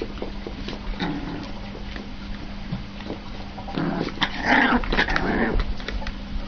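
Dogs at play: scattered light clicks, then a louder burst of dog noise lasting about two seconds past the middle.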